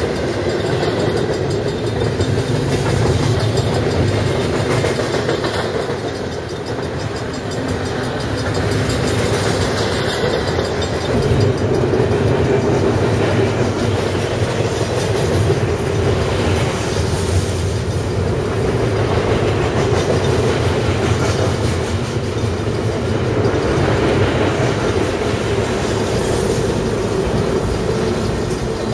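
BNSF double-stack intermodal freight train rolling past close by: a steady rumble of container wagons with the clickety-clack of wheels over the rail joints.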